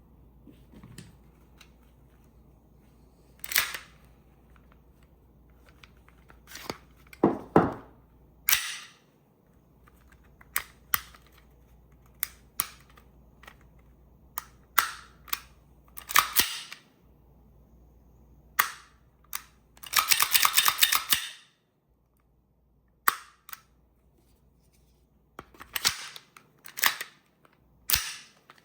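VFC FNX-45 gas blowback airsoft pistol being worked and shot: a series of sharp snaps and clicks, irregularly spaced, with a rapid run of clicks lasting about a second two-thirds of the way through.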